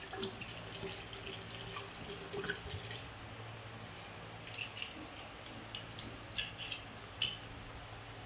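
Liquor pouring from a glass bottle into a large glass jar of peaches for about three seconds, then several sharp clinks of glass bottles.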